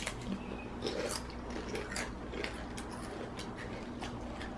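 Two children chewing potato chips with their mouths: quiet, irregular crisp crunches scattered through the chewing.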